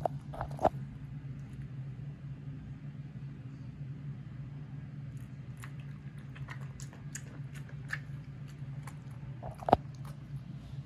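A puppy lapping thin milky food from a ceramic bowl: many small quick wet licks, with a few sharp knocks, two at the start and a louder one near the end.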